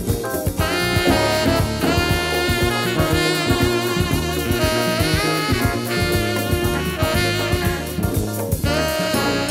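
Tenor saxophone playing a lead melody with sliding notes over a drum kit, bass and brass section, in a 1970s Latin jazz recording.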